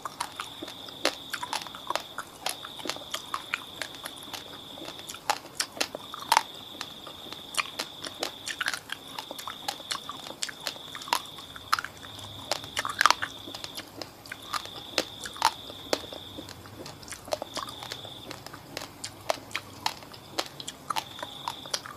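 Close-miked chewing of a mouthful of raw basmati rice: sharp, irregular crunches of the hard grains breaking between the teeth, several a second.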